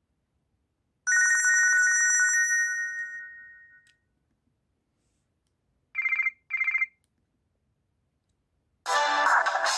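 Nokia C5-00 ringtones and alert tones, one after another: a trilling bell-like ring about a second in that holds briefly and fades out, then a quick double beep, then a fuller musical ringtone starting near the end.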